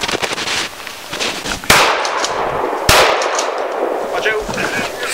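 Two gunshots about a second apart, each a sharp crack followed by about a second of report echoing through the woods.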